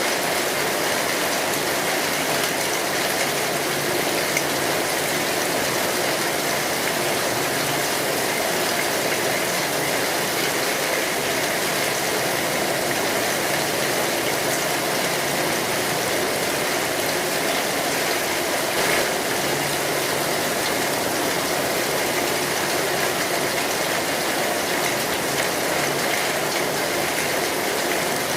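Steady, heavy rain drumming on a metal roof, a dense even patter, with a few faint crackles from a wood fire.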